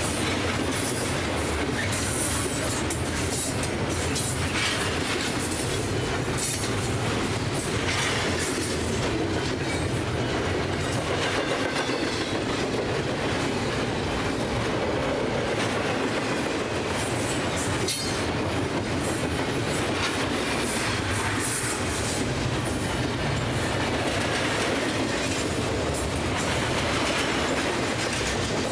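Double-stack freight train rolling past: a steady rumble and clatter of steel wheels on the rails, with occasional faint high wheel squeals.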